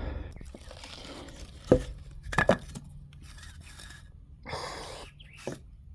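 Short wooden blocks being knocked and shuffled into place under a wooden ramp: a sharp knock, then a quick double knock, then a scraping rustle and a lighter knock near the end.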